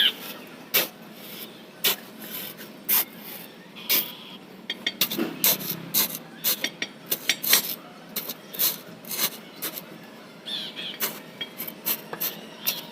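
Hand tools scraping and knocking in cement mortar, in irregular strokes with sharp clicks, several a second at times.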